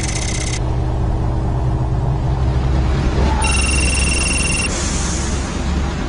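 Steady low machinery rumble, with a shrill high tone that cuts off about half a second in and sounds again for about a second a little past halfway.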